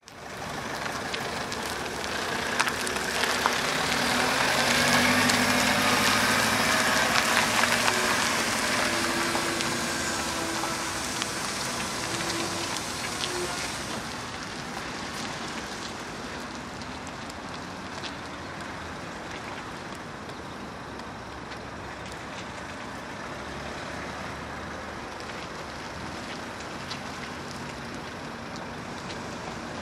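Renault Trafic van driving slowly over a dirt surface, engine running and tyres crunching. It is loudest in the first half as the van passes close, then settles lower after about halfway.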